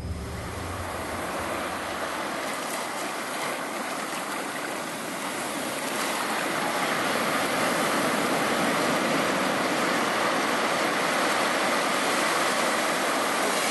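Sea surf: small waves breaking and washing up onto the beach as a steady rush of water that grows a little louder about six seconds in.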